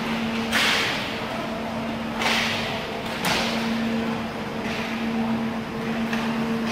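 Inline roller hockey play on a rink floor: a few sharp swishing noises from skates and sticks, the first three about a second apart, over a steady hum.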